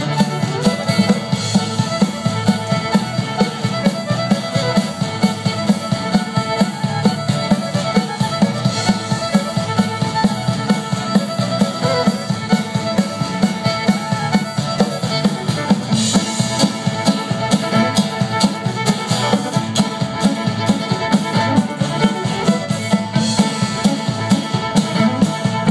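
Lively dance music: fiddle over a steady drum beat, at about two beats a second.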